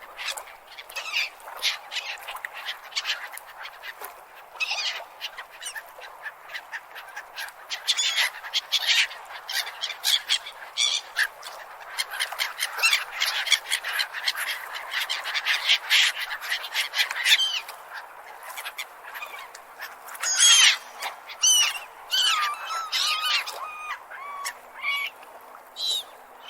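A flock of gulls calling, with many cries overlapping at once. Near the end they thin out into fewer, more separate calls.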